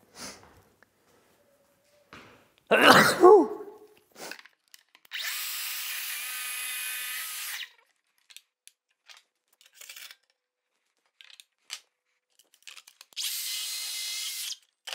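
A cordless plunge-cut saw on a guide rail cutting through a stack of clamped planed roof battens, in two short runs: one of about two and a half seconds, then a shorter one near the end, each a steady whine while the blade is in the wood. About three seconds in there is a brief loud sound, falling in pitch, which is the loudest thing here.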